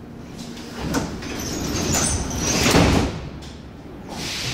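Pneumatic sliding doors of a 1974 Ezh3 Soviet metro car closing, the noise building to a loud thud about three seconds in. Near the end the train starts to move off.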